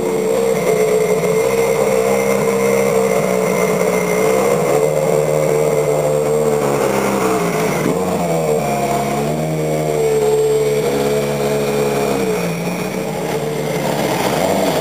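Mazda-powered LMP2 prototype race car's turbocharged four-cylinder engine running at low, steady revs, its pitch dipping and coming back up about halfway through and again near the end.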